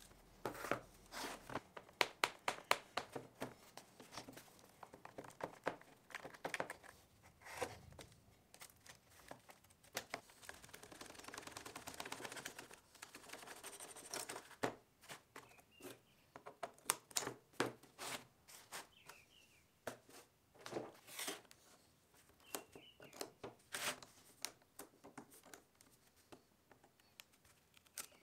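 Lead came and glass pieces of a leaded stained-glass panel being pried and pulled apart with pliers: irregular runs of sharp clicks, snaps and crinkles of soft metal and glass. About ten seconds in there are a few seconds of steadier scraping.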